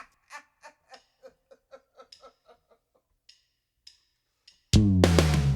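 Background music: a run of short, repeated pitched notes that come quicker and fade away, a near-silent pause with a couple of faint ticks, then a full band with electric guitar and bass kicking in loudly near the end.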